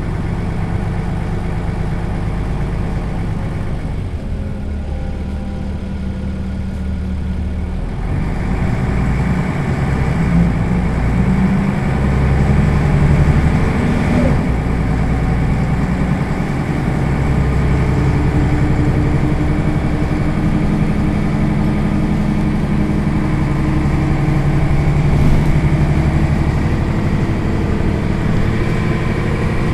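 Mercedes-Benz O 405 city bus's rear-mounted diesel engine idling steadily while the bus stands still. The running grows somewhat louder and deeper about eight seconds in.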